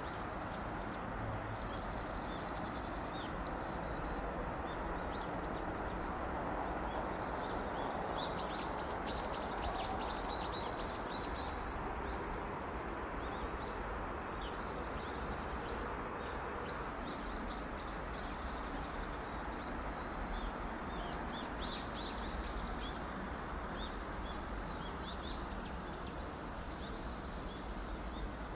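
Small birds chirping, many short, quick high notes that come thickest about a third of the way in and again about three quarters through, over steady background noise.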